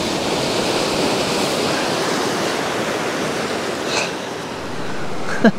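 Sea surf washing on the shore: a steady, even rush of noise.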